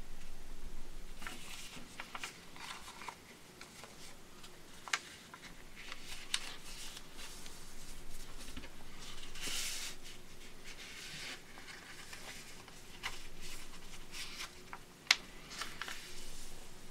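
A sheet of paper being folded and creased by hand: intermittent rustling and sliding of the paper, with a few short sharp clicks as folds are pressed down, the loudest near the end.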